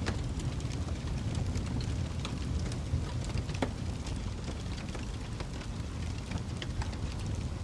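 Wood fire burning in a fireplace: a steady low rumble of flames with frequent small crackles and pops from the burning logs, a few sharper pops about a second in, around three and a half seconds in, and near the end.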